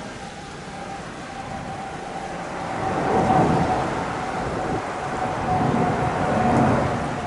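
Jet engines of a Japan Airlines Boeing 787 (GE GEnx) climbing out after takeoff: a rumbling roar that swells about halfway through, with a steady whine running beneath it.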